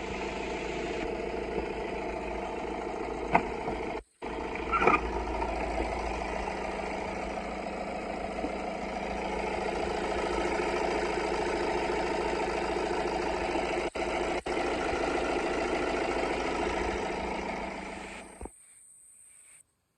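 BMW 118d four-cylinder diesel engine idling steadily, cutting out briefly about four seconds in and stopping suddenly near the end.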